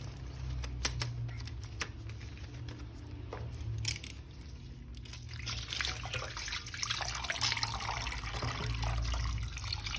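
Water splashing and trickling as a toy action figure is washed, with a few small clicks and knocks of handling in the first seconds.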